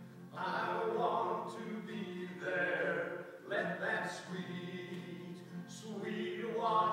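Voices singing a worship song to a strummed acoustic guitar, in phrases broken by short pauses.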